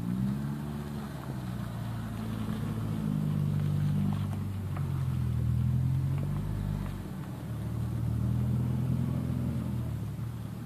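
Car engine running, its note rising and falling slowly a few times as it is revved lightly.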